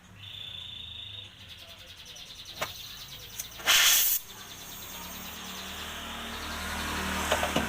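Gas brazing torch hissing while the suction pipe of a refrigerator evaporator is brazed. A sharp click comes about two and a half seconds in, then a short, loud burst of hiss, and the hiss builds slowly towards the end.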